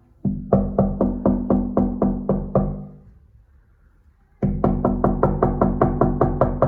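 Knocking on window glass: a steady run of about ten knocks, roughly four a second, with the pane ringing on under them. After a pause of about a second and a half, a faster run of knocks starts near the end.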